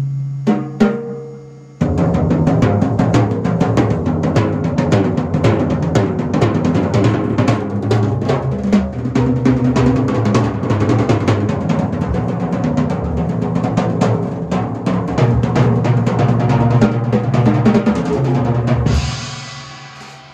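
Large drum kit with many tom-toms and cymbals played in a busy, continuous pattern of rapid hits. A few separate strikes open it, the full playing starts about two seconds in, and near the end it stops on a cymbal that rings on and fades.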